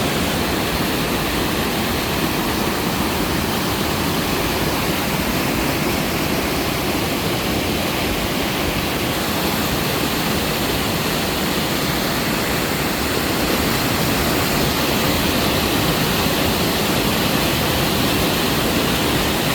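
Small mountain-valley waterfall, water splashing down onto rocks in a steady, loud rush.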